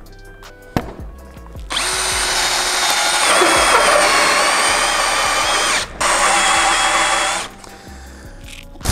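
Ryobi RAD18C cordless angle drill driving a 64 mm hole saw into a wooden board on first speed, a heavy load for this small 10 mm-chuck drill. The motor runs with a high whine for about four seconds, the pitch sagging a little as it bites. It stops briefly, runs again for about a second and a half, then stops.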